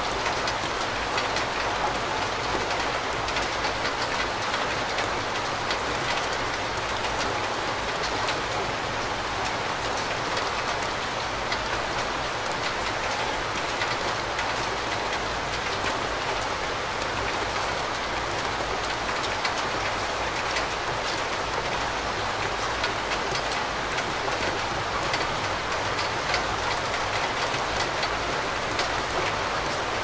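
Steady rain falling in a forest: a dense, even patter of countless drops that does not let up.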